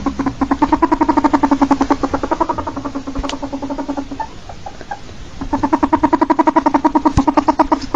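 Ferret calling: a rapid, evenly pulsed chatter of clucks that fades, breaks off for about a second midway, then starts up again.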